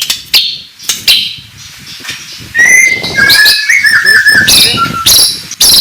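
White-rumped shama (murai batu) singing loudly: a quick string of sharp chip notes, then from about halfway a run of clear whistled phrases that slide up and down.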